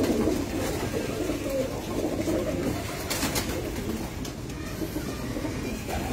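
Domestic pigeons cooing steadily in a loft, many birds overlapping, with a few short clicks about three seconds in.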